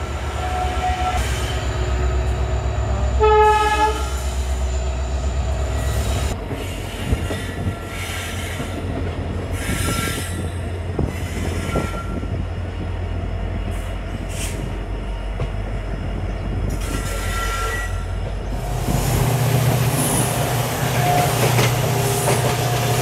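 Diesel-hauled passenger train running as it gathers speed after departure, with a steady low rumble. A short horn blast sounds about three seconds in, and brief high wheel squeals come later.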